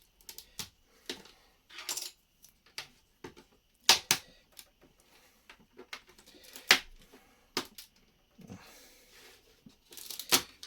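Lego bricks being pulled off a baseplate and handled: irregular sharp plastic clicks and clatters, the loudest about four and seven seconds in.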